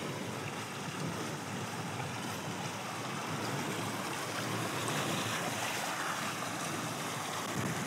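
Steady rush of running water from a small mountain stream.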